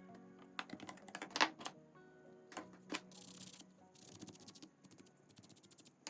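A series of small sharp clicks and taps, with two short hissing bursts in the middle and a quick run of fine ticks near the end, over quiet background music.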